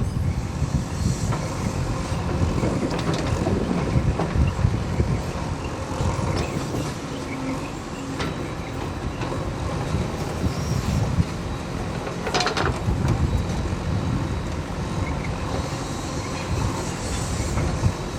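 Backhoe loader's diesel engine running, its low rumble rising and falling, with a short clank about twelve seconds in.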